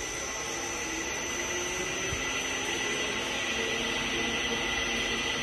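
Electric motor and reducer of a laboratory Z blade (double sigma blade) mixer running its blades forward, a steady mechanical hum with a high whine, growing slightly louder and higher in pitch as the speed is turned up.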